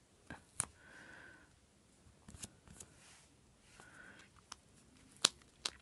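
Hands working a strip of washi tape onto a paper planner page: faint rustling of tape and paper, with a few sharp clicks and taps, the loudest a little after five seconds in.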